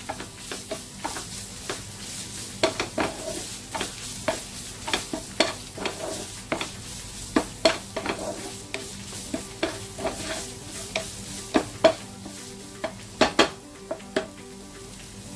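Shredded chicken filling being stirred in a hot oiled pan. The utensil scrapes and clicks against the pan at an irregular pace, over a steady sizzle.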